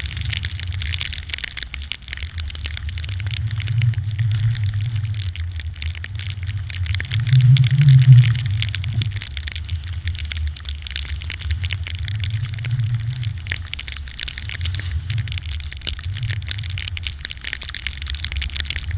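Wind rumbling on the microphone of a pole-held GoPro Hero 2, surging loudest about eight seconds in, over a steady hiss of a snowboard riding through deep fresh powder.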